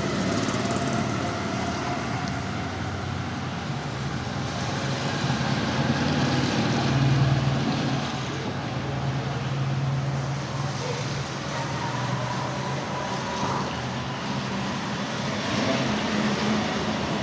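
Motorcycle engine running steadily, growing a little louder about seven seconds in, with a noisy traffic-like background.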